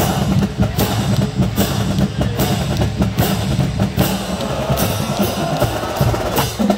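College marching band playing brass with a steady bass- and snare-drum beat, close up from among the players.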